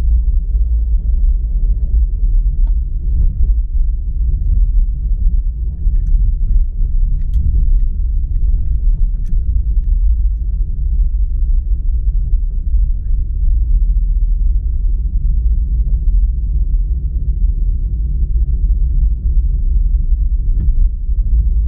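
A car driving, its engine and tyres making a steady low road rumble.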